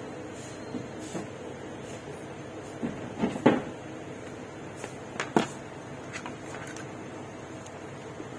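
Steel tweezers clicking and knocking against the metal parts of an opened phone's mainboard: a few sharp clicks, the loudest a little over three seconds in and again about five seconds in, over a steady low hum.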